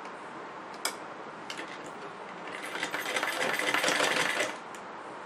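Domestic sewing machine stitching a seam in cloth: a rapid, even clatter of the needle running for about two seconds in the middle, then stopping. A single click about a second in.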